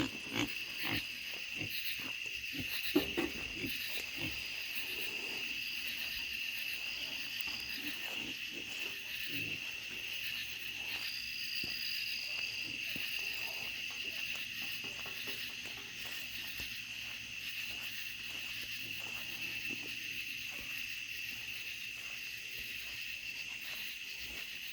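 Night insects, crickets, in a steady high chorus. A few short low sounds come in the first four seconds, the loudest about three seconds in.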